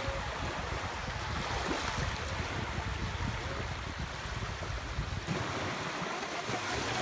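Small sea waves breaking and washing up the shore, with wind rumbling on the microphone until it drops away about five seconds in.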